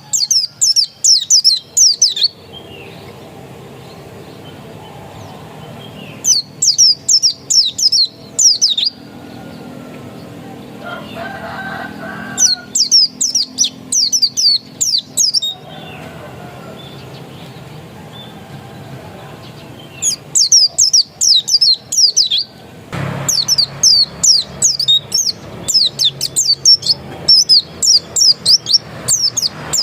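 Pleci (white-eye) songbird singing fast runs of quick high notes in phrases of two to three seconds, with short pauses between them. The last phrase, starting near the end, runs longer.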